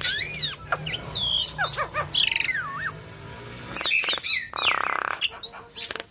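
Javan myna (white-vented myna) singing a fast, varied run of sliding whistles, chirps and squawks that rise and fall in pitch. A harsh buzzy note comes about three-quarters of the way through.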